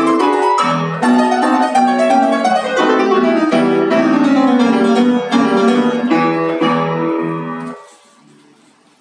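Piano playing a fast passage of many notes over held low bass notes. It stops suddenly about eight seconds in as the piece ends, leaving only faint room sound.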